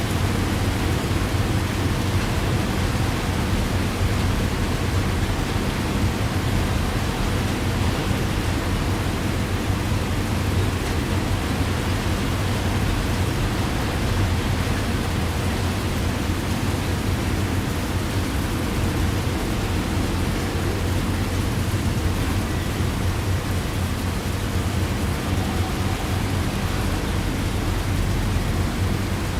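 Heavy rain falling steadily, with a deep, even rumble underneath.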